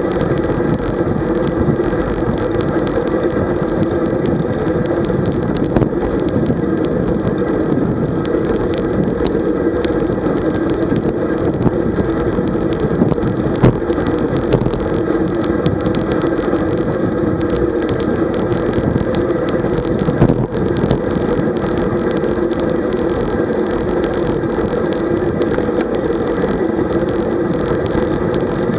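Steady wind and road noise on the camera of a road bike riding at about 40 km/h, with small clicks and rattles from bumps in the road.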